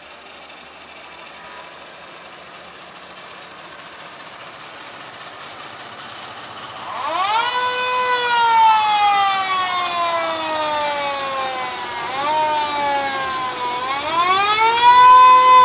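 Fire truck's mechanical siren winding up about halfway through and then coasting down in a slow, falling wail, with a few short blips and a second full wind-up near the end. Before it there is only a faint hum of passing vehicles.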